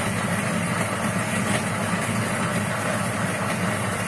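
Niche Zero conical-burr coffee grinder running, grinding a dose of coffee beans fine for espresso: a loud, steady motor whir.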